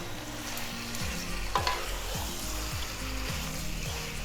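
Chicken pieces in curry masala sizzling in a pan while being stirred with a spoon, with a couple of sharp clinks of the spoon against the pan about a second and a half in.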